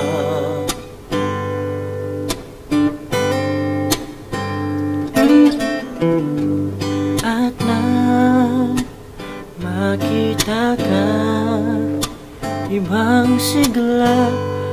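A young man singing a slow Tagalog pop ballad, holding notes with vibrato, over a strummed acoustic guitar accompaniment.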